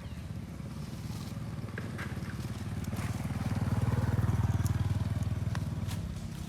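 A small engine running, growing louder to a peak about four seconds in and then fading, like a vehicle passing by.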